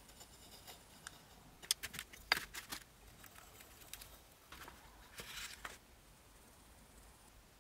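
Faint clicks and scratching of a steel caliper handled against an aluminium bar, its jaw tip scribing marks into the metal. A few sharp clicks come in the first three seconds, the loudest a little over two seconds in, then a short scratchy stretch around five seconds in.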